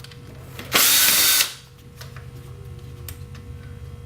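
Cordless drill/driver run in one short burst of under a second, backing out a screw from the RC car's plastic chassis.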